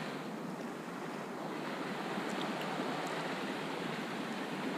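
Steady rushing of a shallow creek flowing over its sandy, rocky bed.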